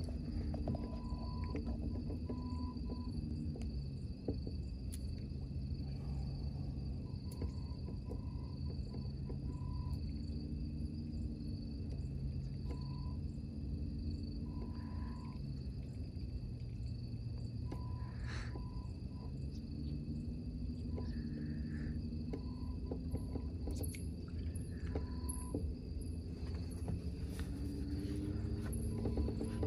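Night insects trilling steadily at a high pitch over a low hum that slowly shifts in pitch, with short mid-pitched beeps coming and going in clusters.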